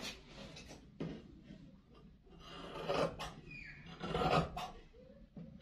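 Rasping and rubbing of cloth being cut and handled on a tailor's cutting table, in a few short, irregular strokes.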